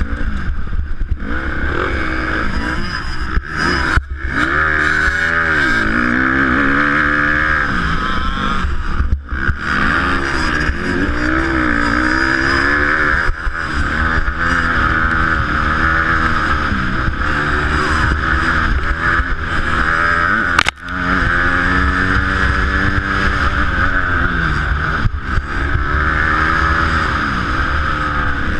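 Dirt bike engine heard from the rider's helmet, revving up and falling back again and again as the throttle is worked around the motocross track, with wind rush over it. The engine note drops away sharply three times, about 4, 9 and 21 seconds in, as the throttle is shut.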